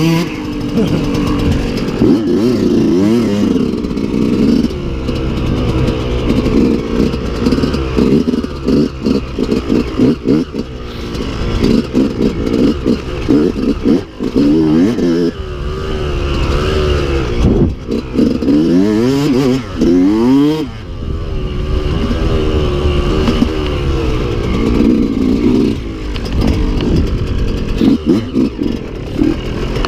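Dirt bike engine heard from on board, revving up and down over and over as the throttle opens and closes and gears change, with rattles and knocks from the bike crossing a rough, rutted track.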